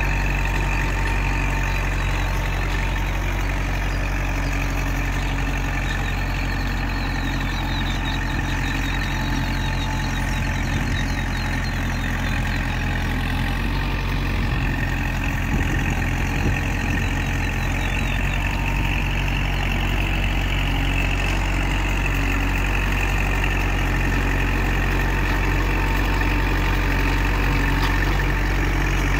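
Kubota MU4501 tractor's four-cylinder diesel engine running steadily as it drives a rotavator tilling the soil.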